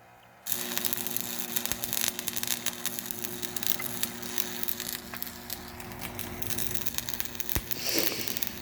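Electric arc welder striking an arc about half a second in and laying a bead: a steady, dense crackle and sizzle over a low electrical hum.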